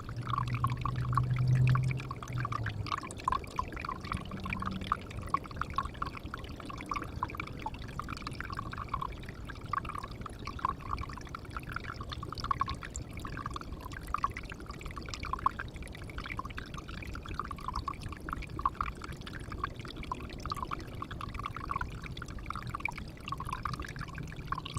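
Water pouring and trickling steadily into a pond, a continuous patter of small splashes. A low hum sits under it for the first few seconds.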